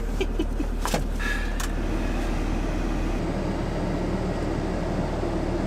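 Iveco Daily campervan's engine running steadily, with a few sharp clicks and short scrapes in the first couple of seconds.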